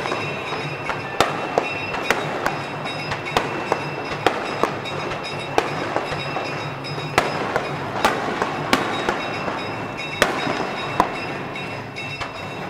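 Aerial fireworks exploding overhead: a string of sharp bangs at irregular intervals, well over a dozen, over a steady background din.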